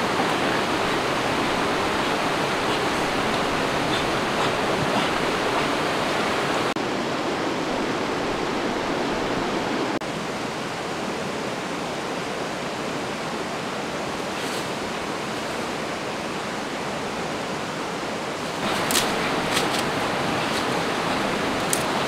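Rushing mountain stream tumbling over rocks, a steady noise of white water. It drops somewhat about ten seconds in and comes back up near the end, where a few short crackles break in.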